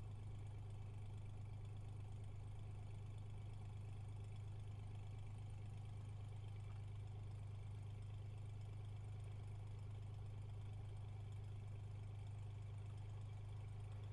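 Cessna 182RG's six-cylinder Lycoming engine and propeller turning at low taxi power, a steady low drone with no change in pitch.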